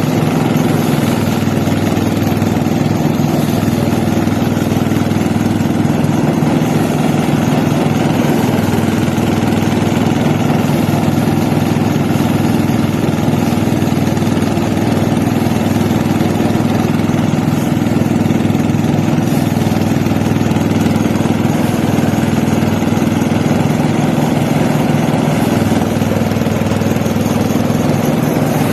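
An engine running steadily at an even speed, with no revving or change in pitch.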